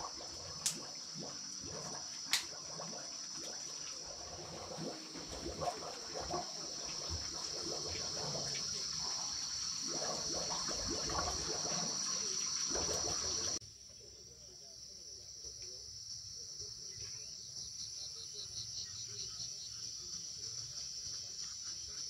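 A steady high-pitched chorus of insects trilling throughout. Over it, for the first half, come a few sharp knocks and a busy rustling and scraping of hands at work on the floor while a small fire is lit. Then the rustling stops abruptly, leaving the insect chorus with a short run of rapid ticks.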